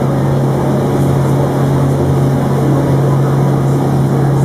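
Boat engine running steadily under way: a constant low hum with a rushing noise over it.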